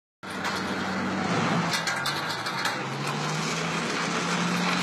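An engine running with a steady low drone, and a few sharp metallic clanks about two seconds in from metal crowd-control barriers being dragged and dropped.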